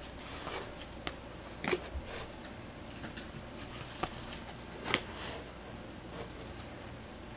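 Stiff trading cards being flipped through by hand: card stock sliding and flicking against the stack in short, sharp swishes and snaps, loudest about a second and a half in and again near five seconds.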